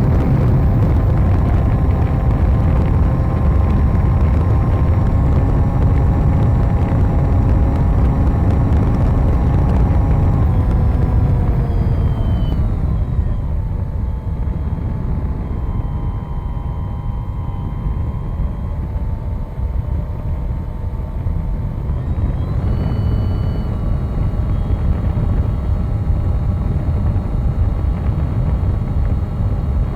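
Wind buffeting the onboard camera's microphone under the steady whine of the RC plane's motor and propeller. The whine drops in pitch about ten seconds in as the throttle comes back, holds lower, then rises again a little after twenty seconds as the throttle is opened up.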